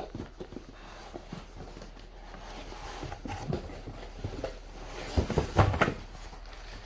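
Unpacking a bicycle repair stand: rustling of packaging and scattered knocks as its heavy steel parts are handled, with a cluster of louder thumps about five seconds in.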